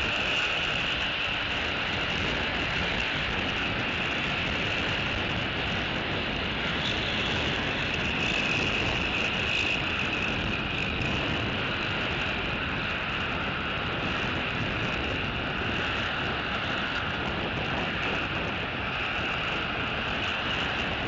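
Steady outdoor background noise picked up by the nest camera's microphone: an even hiss with a constant high-pitched band running through it and no distinct calls or events.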